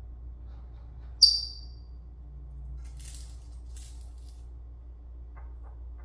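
Senegal parrot giving one short, sharp, high-pitched squeak about a second in, followed a couple of seconds later by two brief airy, hissing rustles, over a steady low room hum.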